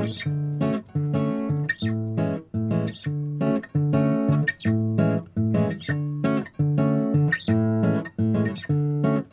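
Background music: a plucked acoustic guitar tune with a steady rhythm of about two notes or strums a second.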